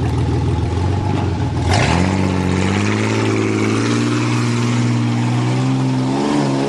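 Ford Ranger pickup's engine running at low revs, then, after a brief thump about two seconds in, revving up with its pitch climbing steadily as the truck accelerates from a rolling start, levelling off and easing slightly near the end.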